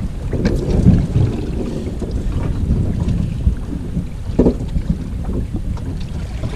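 Wind buffeting the microphone in an uneven low rumble aboard a small boat at sea, with a couple of brief faint sounds over it.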